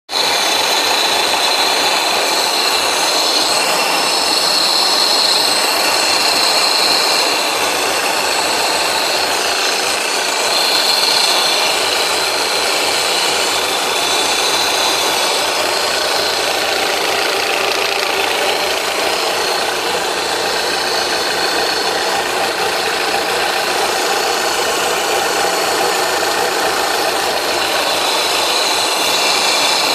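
Alfa Romeo 156 2.0 JTS engine running with a steady sawing noise from the black actuator box on its electronic throttle body, the sign of a faulty throttle body.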